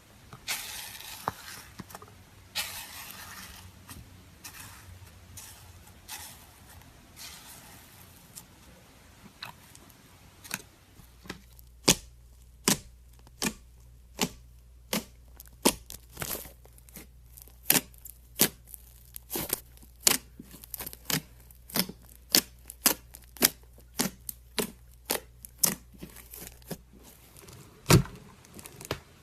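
Slime being worked by hand: a noisy, sticky rustle for the first several seconds, then a long run of sharp clicks and pops, roughly two a second.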